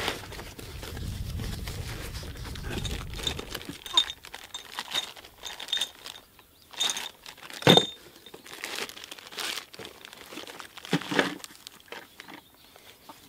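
Plastic bags of hardware and cardboard box flaps being handled and rummaged through: irregular crinkling and rustling with scattered sharp clicks, the loudest about eight seconds in. A low rumble sits under the first three seconds or so.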